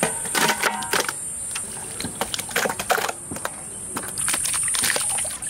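Wet slaps and squelches of marinated goat meat handled by hand: pieces lifted dripping from an aluminium pot and dropped onto a tray, a run of short, irregular knocks. A steady high buzz runs behind, louder near the end.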